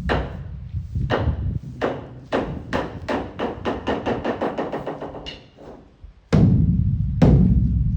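Large Buddhist temple dharma drum (beopgo) beaten with two sticks. The strikes quicken into a fast roll and die down to a lull. About six seconds in, heavy booming beats start again, close to a second apart.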